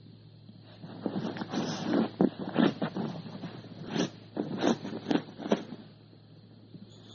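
Dachshund pawing and digging at a cotton duvet: a run of quick, irregular rustling scrapes that starts about a second in and stops near the end.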